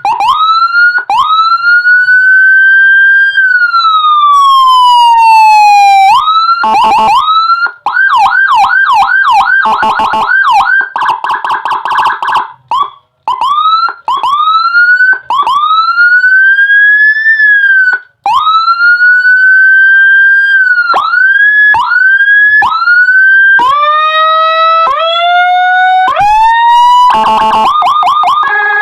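Electronic police siren module with Whelen HHS 3200 tones, 150 W, playing through a horn speaker and cycling through its sounds. Short rising chirps and a slow wail that climbs for about three seconds and then falls. Around eight seconds in come fast yelps and then a rapid warble, followed by longer wail sweeps, and a run of short rising whoops that step higher in pitch near the end.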